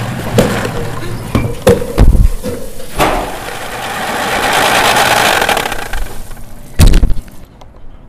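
Layered mechanical sound effects: scattered knocks and heavy low thumps, then a rushing engine-like noise that swells and dies away, a loud bang near the end, and a fade to silence.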